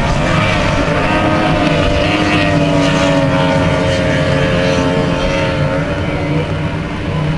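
Outboard engines of Formula 4 racing powerboats running flat out, a steady high-pitched drone that dips in pitch about a second in and then holds, over a constant hiss.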